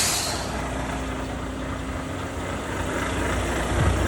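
Volvo FH truck's diesel engine idling with a steady deep rumble through its aftermarket exhaust, the rumble swelling slightly near the end. A short hiss of released air from the truck's air brakes at the very start.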